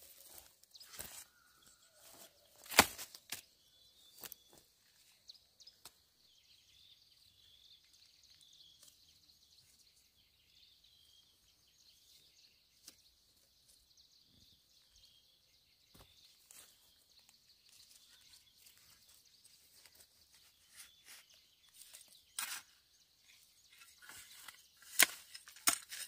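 A few sharp chopping knocks: the loudest about three seconds in, more near the end. Faint scattered clicks and rustles come between them.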